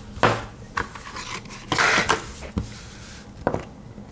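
Small metal pocket knife handled: several sharp clicks, with a short scraping rub just before the two-second mark.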